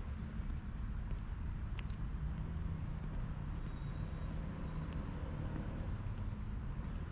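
Outdoor ambience with distant road traffic: a steady low rumble, with a faint engine-like hum rising out of it for a couple of seconds in the middle.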